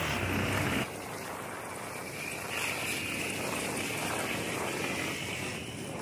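Dirt bike engine running for under a second, then an abrupt cut to a steady rushing noise of wind on the microphone while riding.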